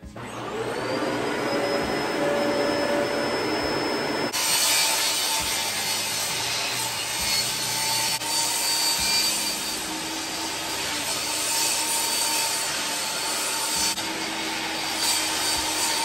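A Dyson vacuum, used here as dust extraction, whines up to speed. About four seconds in, a portable table saw starts cutting through a sheet of plywood, and the saw and the vacuum run on together with a loud, steady hiss.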